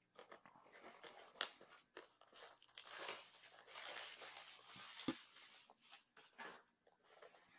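Shrink wrap being torn and crinkled off a cardboard Panini Prizm Football mega box, with sharp clicks and rustles as the box is handled. The tearing and crinkling is steadiest and loudest from about two and a half seconds in until near the end.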